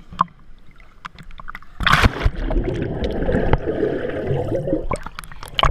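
Water splashing about two seconds in, followed by about three seconds of churning, gurgling water that then eases off.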